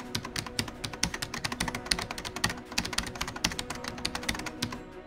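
Computer keyboard typing sound effect: quick, uneven key clicks going on without a break, with faint steady music underneath.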